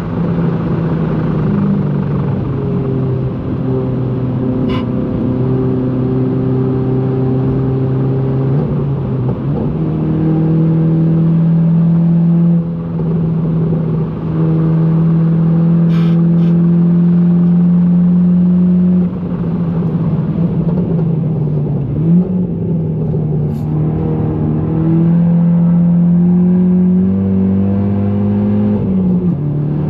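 GTI hot hatch's engine working hard on track: a loud, steady engine note with short breaks and steps in pitch every few seconds as it changes gear or lifts off, with a few sharp clicks.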